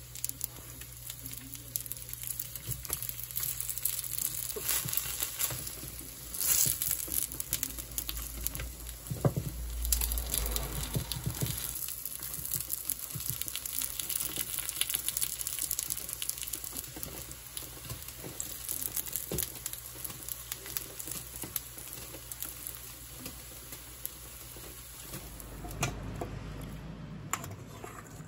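Jeolpyeon (patterned rice cakes) frying in oil in a pan, sizzling and crackling steadily, with a few taps of wooden chopsticks turning them.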